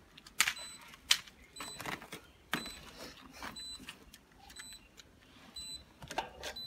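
Sharp, separate plastic clicks and knocks from a new 63 A miniature circuit breaker being handled, several spread over a few seconds.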